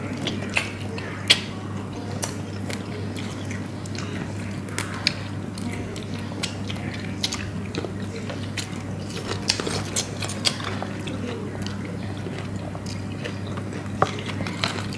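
People biting and chewing grilled chicken wings close to the microphone, with many scattered small clicks and taps. A steady low hum runs underneath.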